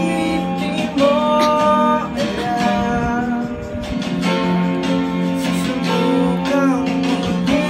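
A voice singing a slow song over strummed acoustic guitar, with long held notes that slide from one pitch to the next.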